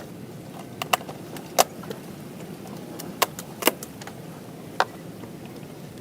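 A handful of sharp clicks and knocks at irregular intervals over a steady low background noise.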